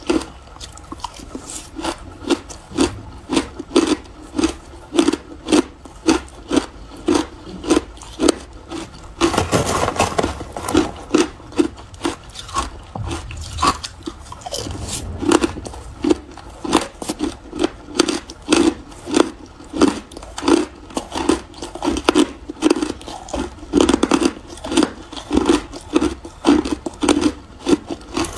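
Crushed and shaved ice being chewed close to the microphone: a steady run of crunches, about two a second, with a longer, denser stretch of crunching and scraping about ten seconds in.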